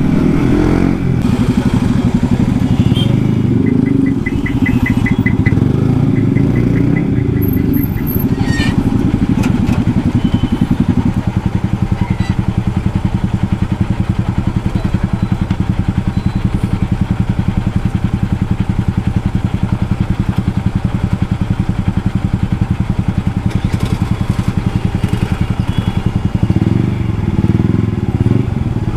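Motorcycle with an aftermarket exhaust, ridden on the road: the engine note shifts over the first ten or so seconds, then holds a steady cruising drone and picks up again near the end. A short run of high, evenly spaced pulses sounds a few seconds in.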